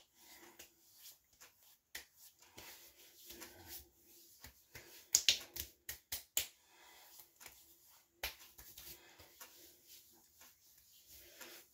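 Hands rubbing aftershave balm into the face and freshly shaved scalp. Soft skin-on-skin rubbing is broken by a string of sharp pats and slaps of palm on skin, loudest a little past the middle.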